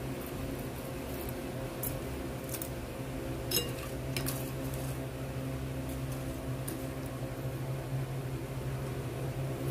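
Metal spoon stirring in a ceramic bowl of soapy water, clinking against the bowl a few times, the sharpest clink about three and a half seconds in. A steady low hum runs underneath.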